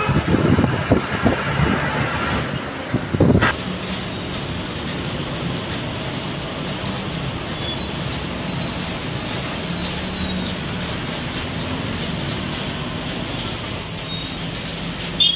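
Train running on its rails: irregular low thumps for the first three seconds or so, then a steady rumble with a faint high wheel squeal.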